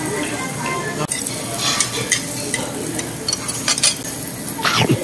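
Pork belly and beef brisket sizzling on a tabletop barbecue grill, a steady hiss with scattered clinks of utensils and a short falling squeak near the end.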